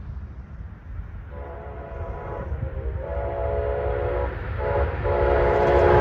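Diesel freight locomotive's multi-chime air horn sounding long, long, short, long, the grade-crossing signal, as the train approaches with its rumble growing louder.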